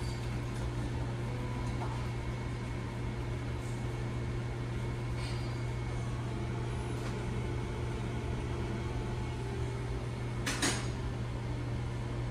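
Automatic conveyor pancake machine running with a steady low hum while it cooks and feeds out pancakes. A brief clatter comes about ten seconds in.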